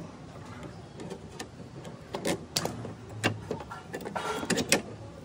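Hand tools clicking and knocking on metal as the rear clutch and wheel assembly of a Scooty Pep scooter is worked on, with a short rattling run about four seconds in.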